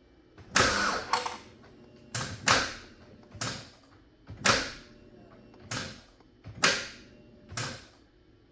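Starter motor repeatedly trying to crank the engine, which stalls at a tight spot in its rotation: a short, sharp burst of noise roughly once a second, about eight times. The sticking point is a sign that something inside the engine is binding.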